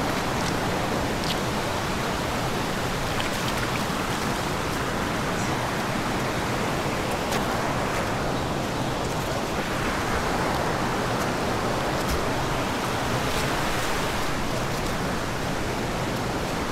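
Steady rushing of creek water flowing over rock.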